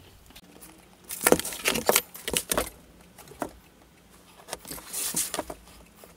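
Marking tools handled on a workbench: a tape measure put down and a steel framing square laid and shifted on an MDF board. This gives a cluster of sharp clicks and knocks about a second in, and another around five seconds.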